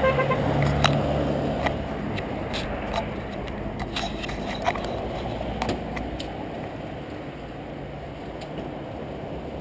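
Motorcycle engine running at low revs, a steady low rumble that eases a little after the first few seconds, with scattered light clicks and knocks on top.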